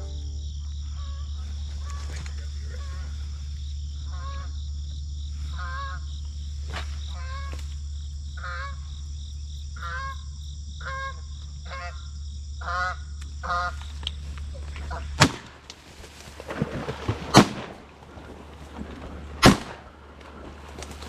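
A flock of Canada geese honking, calls repeating about every half second, then three shotgun shots about two seconds apart, the shots far louder than the calls.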